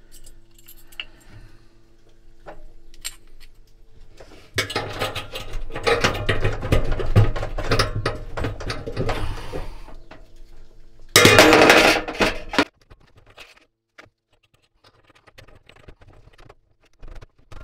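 Metal clattering and scraping as parts of the rear bearing hub are fitted into the stainless steel drum of a Fisher & Paykel dryer by hand and with a screwdriver. It is busiest from about five to ten seconds in. A louder scrape of about a second and a half comes a little past the middle. A steady low hum runs under the first part.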